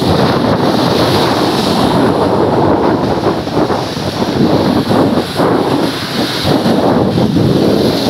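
Strong wind buffeting the microphone over the rushing wash of rough surf breaking on the shore, a continuous loud noise that rises and falls unevenly.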